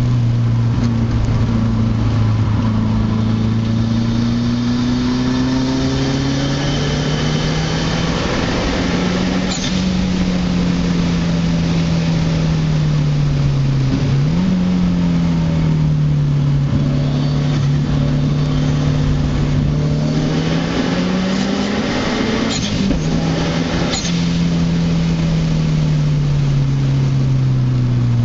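2004 Subaru WRX's turbocharged flat-four engine heard from inside the cabin at speed on track, its pitch rising and falling in long sweeps as the car accelerates and slows; about halfway through the pitch dips and then jumps up sharply. A few brief high squeaks come through in the second half.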